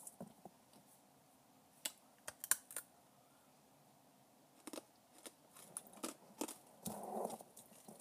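Faint wet mouth clicks and lip smacks from sucking on a lollipop, a scattering of short sharp ones, with a brief low murmur about seven seconds in.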